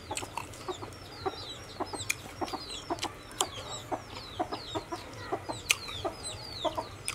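Chickens clucking in short repeated notes, with small birds chirping in quick high falling notes. A few sharp crunches of baby corn being chewed come through.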